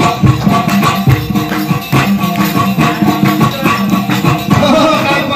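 Dambura, the Afghan two-stringed long-necked lute, strummed fast and rhythmically in an Afghan folk tune.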